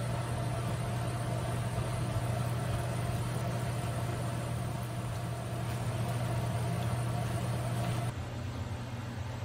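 Steady low machine hum over a faint even hiss in a kitchen; the hum shifts and drops slightly about eight seconds in.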